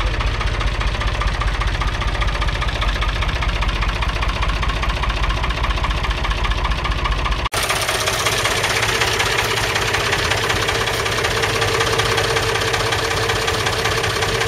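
1966 David Brown 880 Selectamatic's 2.7-litre three-cylinder diesel engine idling steadily. About halfway through the sound drops out for an instant at a cut, and the engine carries on idling with a steady hum over it.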